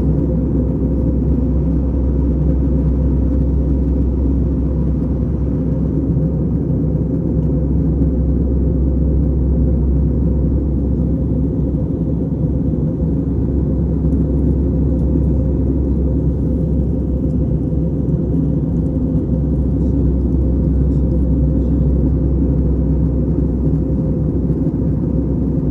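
Steady low drone of an airliner cabin in flight, the engine and airflow noise heard from inside during the descent.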